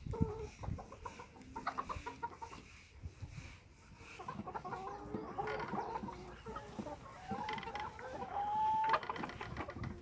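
A flock of brown laying hens clucking in a henhouse: many short, overlapping calls, with one louder drawn-out call near the end.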